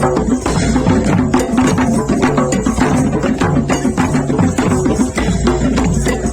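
Background music with a steady percussive beat over sustained instrumental notes.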